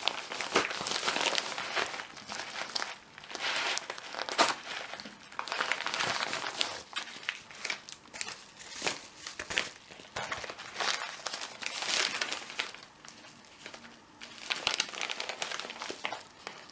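Crinkly packaging being handled and rummaged through, in irregular bursts of crumpling and rustling that stop and start.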